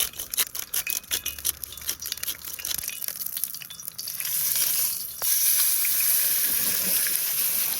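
Irregular clicking from the steak being salted and peppered, then from about four seconds in a thick steak sizzling in a scorching-hot pan of olive oil. The sizzle jumps louder about a second later and stays steady.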